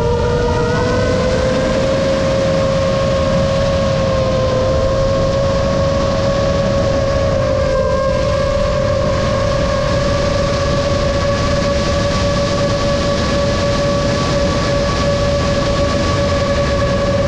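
A 7-inch FPV drone's motors and propellers whine at a steady pitch over a low rushing noise; the pitch rises slightly in the first two seconds, then holds.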